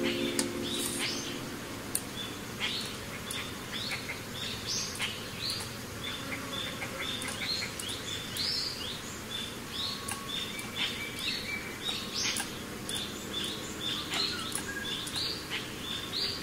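Birds chirping: many short, high chirps overlapping several times a second, some sliding upward.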